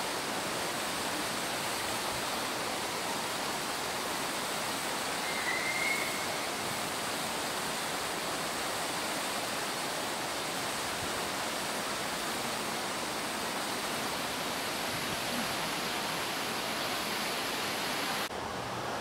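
Steady rush of a waterfall, with one brief high chirp about six seconds in. The rush drops away abruptly near the end.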